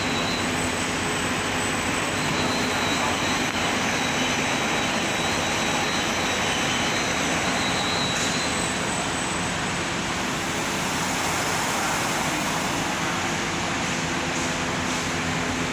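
Double-head aluminium cutting saw running with a steady mechanical whine and a thin high tone that fades out about halfway through.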